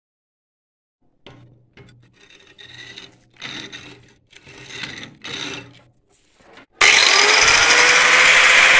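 A few short, quiet scraping and rubbing sounds, then an angle grinder switches on suddenly near the end, its whine rising as the disc spins up to speed and then running loud and steady.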